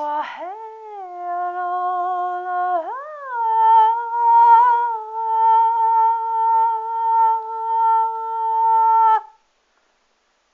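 A dog howling: one long drawn-out howl that slides up in pitch twice, about a third of a second in and about three seconds in, then holds a steady note and cuts off abruptly near the end.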